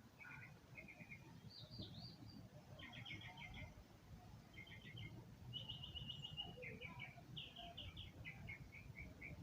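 Faint bird calls: quick runs of short, high chirps, repeated throughout, over a low background rumble.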